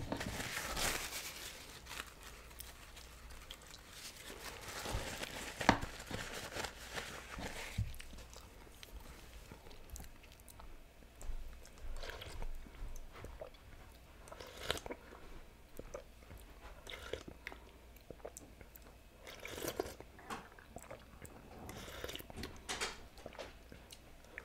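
Quiet noodle eating: chewing, and sipping broth from a ceramic soup spoon. A longer slurping hiss fills the first several seconds, then come scattered soft clicks and short mouth sounds.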